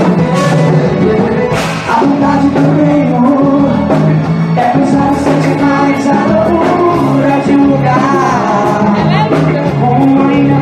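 Live forró band playing loudly, with a singer's voice over the band and a steady drum beat.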